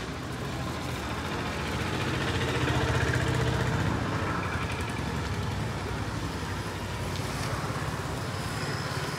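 Street traffic: a passing motor vehicle's engine hum swells to its loudest about three seconds in, then eases back to a steady background drone.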